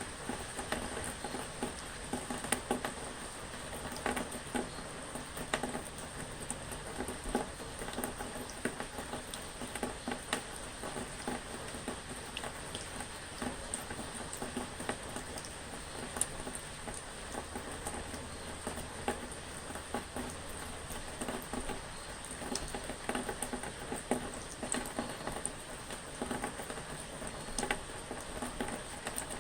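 Rain pattering steadily, a dense spatter of drops with sharper single drip clicks scattered throughout.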